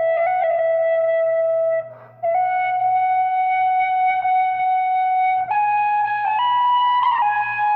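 Tin whistle playing a slow melody of long held notes, with a short pause for breath about two seconds in, then stepping up in pitch over the last couple of seconds.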